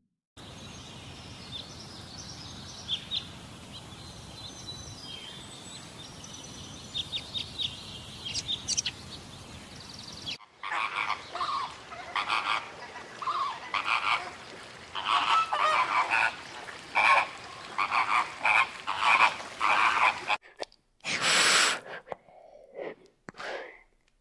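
Outdoor ambience with faint high bird chirps, then a long run of rapid, repeated animal calls, and a single loud call near the end.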